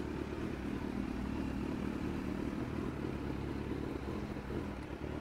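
Inline-four superbike engines idling and pulling away slowly at low revs, a steady engine sound with no revving.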